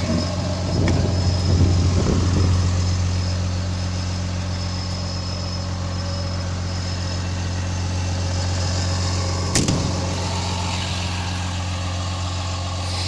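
Peterbilt 337 truck's diesel engine idling steadily. There is some handling noise in the first couple of seconds and a single sharp knock near the end.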